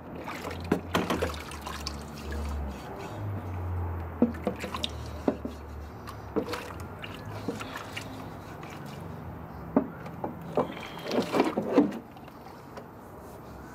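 Rusty vinegar-and-water soak pouring and dripping off a cast iron skillet into a plastic tote, with small splashes and knocks throughout. A louder burst of sloshing near the end as the skillet is lowered back into the bath.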